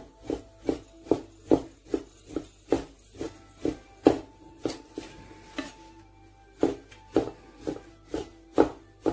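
Chinese cleaver slicing raw pork on a round wooden chopping board, the blade knocking on the wood about two to three times a second with a short pause about two-thirds of the way through, over background music.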